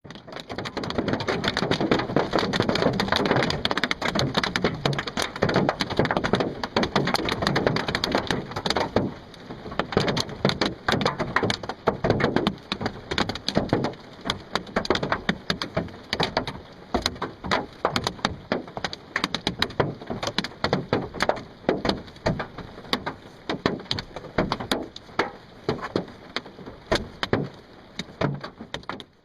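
Hailstones pelting a Ford F-150's body panels in a dense, unbroken clatter of sharp hits, thinning after about eight seconds into more separate impacts.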